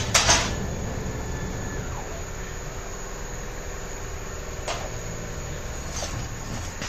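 Steady hum of running shop machinery around the CNC plasma table, with a faint higher tone that dies away about two seconds in. A sharp click comes just after the start and a fainter one a little later.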